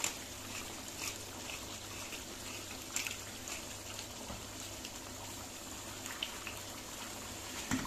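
Chicken karahi gravy simmering in a wok: a steady hiss with scattered small pops and bubbles.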